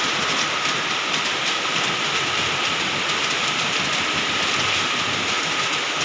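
Heavy rain pouring down, a loud, steady, even hiss.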